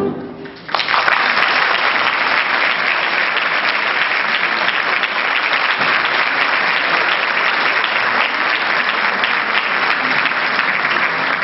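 The band's final note dies away, and under a second in a large audience breaks into applause that holds steady and dense.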